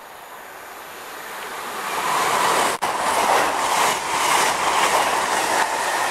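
CrossCountry Voyager diesel multiple unit approaching and running through the station at speed. The noise of wheels on rail grows steadily, peaks as the coaches pass close by with a regular clatter, and has a split-second break about three seconds in.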